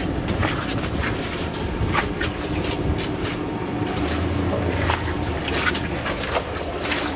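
Wet crunching and squelching of footsteps on a muddy gravel road, with scattered irregular clicks over a steady wet hiss. A low rumble joins about four seconds in.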